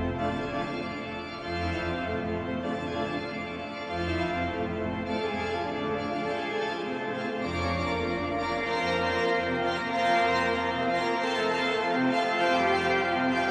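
York Minster's pipe organ playing sustained chords, with deep pedal bass notes that come and go beneath them.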